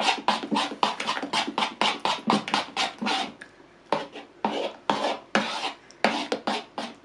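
Metal spoon stirring thick ground-lentil and rice batter in a wooden bowl: quick, even strokes about four a second, with a short break about halfway through.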